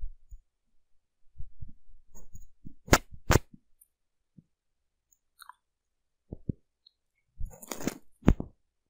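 A few sharp, separate clicks and soft taps from a computer keyboard: a command being typed and entered. The loudest pair of clicks comes about three seconds in, and another cluster comes near the end.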